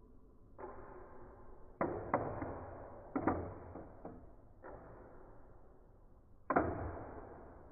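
Two Beyblade battle tops, Hound Dog Ignition and Wolborg Hybrid, clashing as they spin in a plastic stadium. About six sharp clacks come at uneven intervals, each trailing off in a short grinding rattle as the tops rub and bounce apart. The loudest hit comes near the end.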